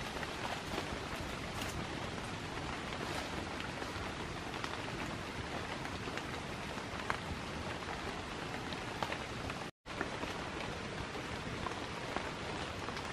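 Steady rain falling on dense forest foliage, with scattered sharper drops striking close by. The sound cuts out completely for an instant about ten seconds in.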